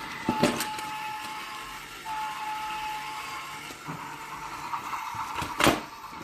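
Small electric motor of a battery-powered remote-control toy train running with a steady whine, broken by two sharp knocks, one about half a second in and a louder one near the end.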